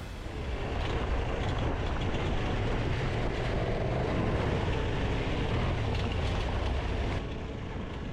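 KTM adventure motorcycle running steadily on a loose gravel mountain track, with engine rumble mixed with tyre noise. The level drops slightly near the end.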